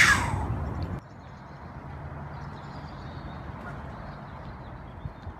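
A sharp click, then a steady low outdoor rumble that drops in level about a second in, with faint bird chirps over it.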